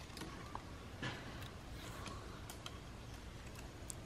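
Faint, scattered light ticks and rustles of a thin rattan strip being wrapped and tucked by hand around a wooden knife sheath, irregular rather than rhythmic.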